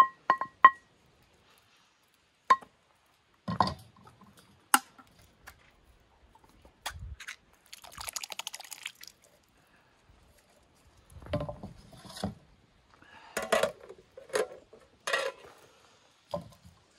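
Scattered knocks and clinks of things being handled, with a short rush of liquid-like noise about eight seconds in.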